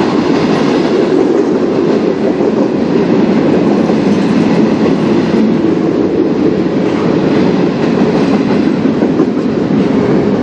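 Freight train's covered hopper cars rolling past on steel wheels: a steady, continuous noise of wheels on the rails.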